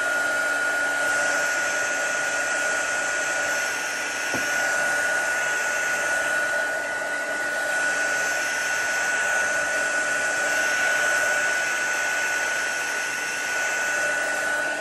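Handheld craft heat tool blowing hot air steadily, a rushing hiss with a thin high whine. It is drying wet Distress ink and water spatters on kraft cardstock.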